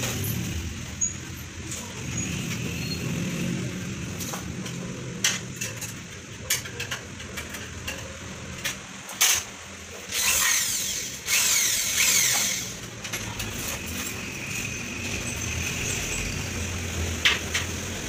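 Cordless drill run in two bursts of about a second each, near the middle of the stretch, while fixing the sliding-door frame. Scattered sharp clinks of hardware and hand tools come before and after.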